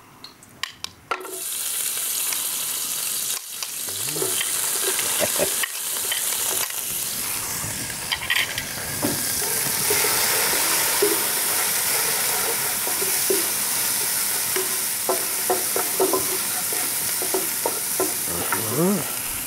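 Food sizzling in hot oil in a frying pan, stirred and scraped with a wooden spatula. The sizzle starts suddenly about a second in, as the food goes into the oil, and then holds steady.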